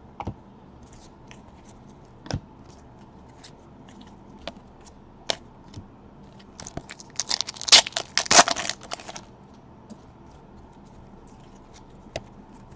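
Football trading cards handled and slid against each other in the hand: scattered light clicks and taps, with a louder burst of crinkly tearing and rustling a little past halfway that lasts about two seconds.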